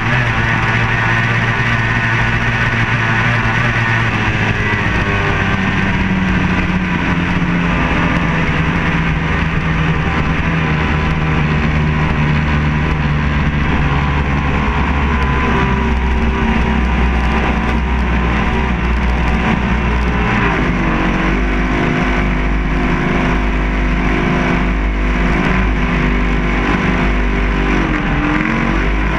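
Racing tunnel-hull powerboat's outboard engine running hard at speed, with wind and water rushing over the hull. The engine note drops briefly about two-thirds of the way through and again near the end, then climbs back as the throttle is reopened.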